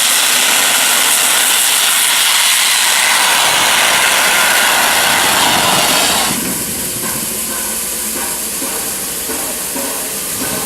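Steam hissing loudly and steadily from 60163 Tornado, a Peppercorn A1 Pacific steam locomotive, cutting off sharply about six seconds in and leaving quieter train noise.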